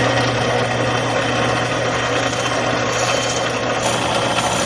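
Power tool motor running steadily with a low hum as a drill bit bores the hole through an ebony pen blank.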